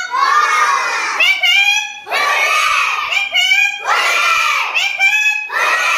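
A group of young children shouting together in a run of short, high-pitched calls, roughly one a second.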